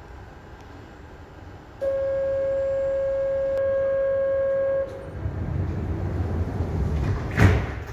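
Metro train's door-closing warning tone sounding steadily for about three seconds. The sliding doors then rumble shut, ending in a loud clunk shortly before the end.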